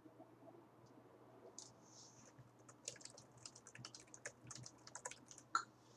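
Faint, irregular clicking of typing on a computer keyboard, starting about one and a half seconds in, with one louder click near the end.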